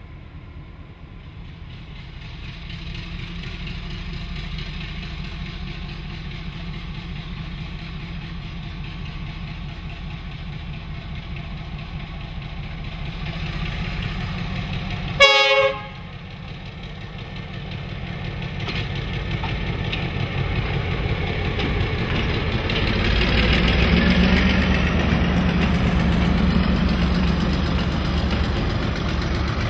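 Y class diesel-electric locomotive with a GM two-stroke diesel engine, approaching with a rising rumble. About halfway through it sounds one short, loud horn blast. Its train of passenger carriages then rumbles past, loudest near the end.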